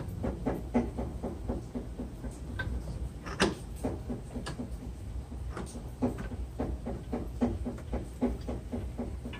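A new front CV axle on a Kia Forte being turned and worked into place so its splines line up, giving an irregular run of short knocks and clicks, about two a second, the loudest about three and a half seconds in. A steady low rumble runs underneath.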